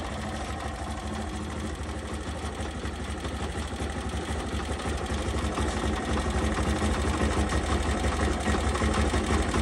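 Bajaj Pulsar 200's single-cylinder four-stroke engine idling, getting gradually louder, with a light tappet tick still in it just after its valve clearance was set. The owner attributes the ticking to valve clearance and finds it much reduced now.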